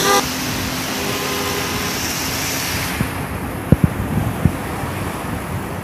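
Steady rushing noise of a swollen, fast-flowing river with road traffic nearby. A car horn cuts off just at the start, the noise thins about three seconds in, and a few dull knocks follow around four seconds in.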